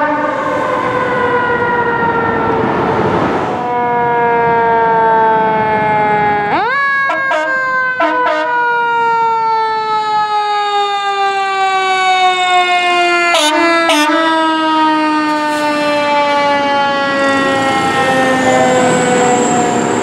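Fire engine's mechanical siren winding slowly down in pitch, spun up sharply again about six and a half seconds in, then coasting slowly down once more. A couple of short, sharp blips break in about two-thirds of the way through.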